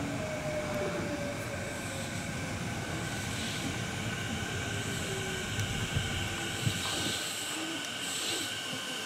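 Sanyo 6000 series electric multiple unit pulling into a station and slowing. The motor whine falls in pitch and the wheels rumble on the rails, with steady high-pitched tones over them. The rumble fades out about seven seconds in as the train nears its stop.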